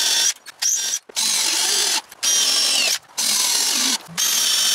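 Porter-Cable cordless drill pre-drilling pilot holes in plywood: about five short runs of the motor, each under a second, with brief pauses between holes.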